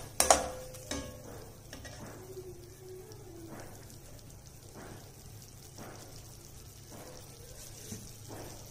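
A metal slotted spoon clanks once against an aluminium kadai just after the start. Then the onion and curd masala frying in the pan gives a low, steady sizzle.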